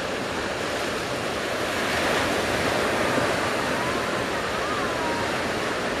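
Heavy surf breaking: a steady wash of big waves, swelling a little about two seconds in.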